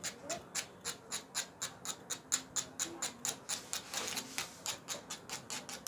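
Pencil shading strokes scratching back and forth over the drawing surface in a quick, even rhythm of about five strokes a second.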